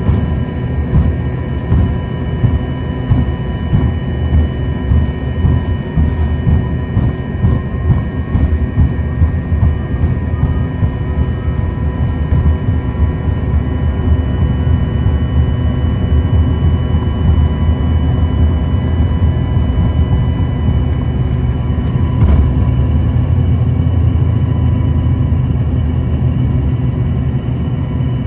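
Inside the cabin of an Embraer ERJ-145XR, its rear-mounted Rolls-Royce AE 3007 turbofans running: a loud, steady low rumble with a steady engine whine on top. There is one short knock about three-quarters of the way through.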